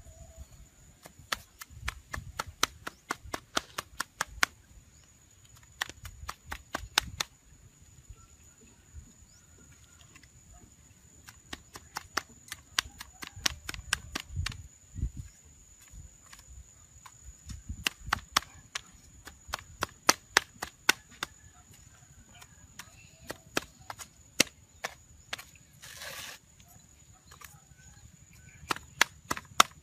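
A blade chopping wood in quick runs of sharp strikes, about three or four a second, with short pauses between the runs. A steady high-pitched tone runs underneath.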